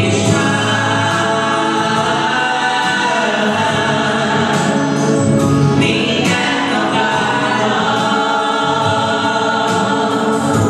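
A woman and a young man singing a gospel worship song into microphones, accompanied by chords on a Yamaha electronic keyboard.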